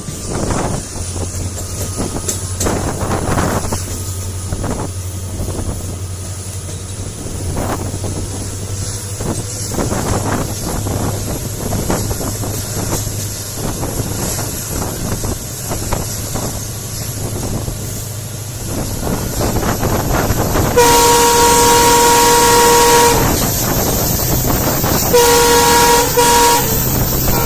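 An EMD WDP4D diesel locomotive hauling the train with a steady low hum, under the clatter of the coach wheels on the rail joints. Near the end its horn sounds twice: a blast of about two seconds, then a shorter one a few seconds later.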